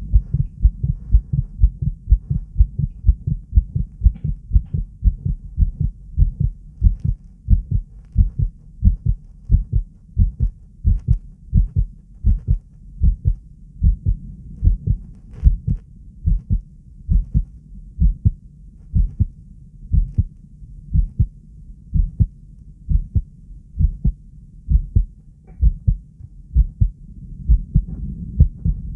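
Human heartbeat, strong and slow under controlled bradycardia: a steady rhythm of low lub-dub thumps, each beat a pair of sounds.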